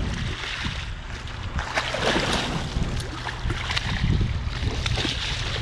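A hooked striped bass splashing and thrashing at the surface in shallow water as it is landed, with several short splashes. Small waves wash over the rocks and wind rumbles on the microphone.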